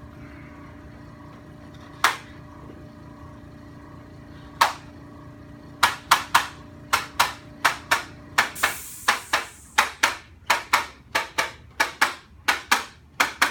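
Sharp taps: single ones about two and four and a half seconds in, then a quick, even run of about four a second from about six seconds on.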